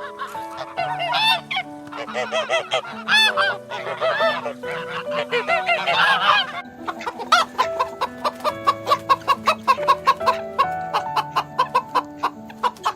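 Repeated honking bird calls, goose-like, over steady background music. In the second half they give way to a quick run of short clucking pulses, about four a second.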